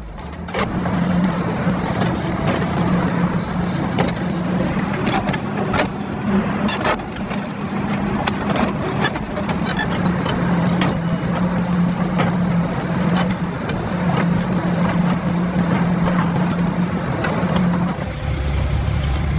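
Heavy excavator engine running steadily under load, with repeated sharp cracks and knocks as a stump harvester attachment tears into tree stumps. Near the end it gives way to a deeper low rumble.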